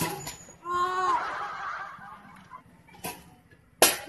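A person's short, drawn-out vocal cry, then two sharp cracks near the end, the second the loudest.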